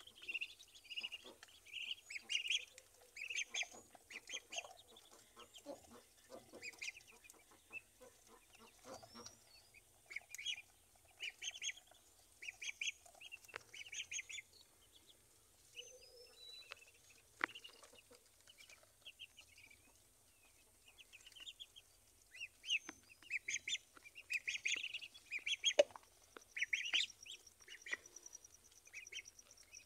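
Muscovy ducklings peeping: clusters of short, high chirps that come and go.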